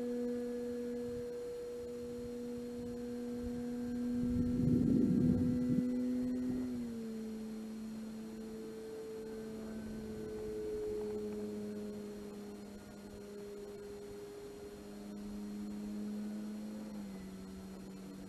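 The electric motor and propeller of an E-flite Carbon-Z Cessna 150 RC plane in flight, a steady droning tone whose pitch steps down slightly twice. A brief low rumble comes about five seconds in.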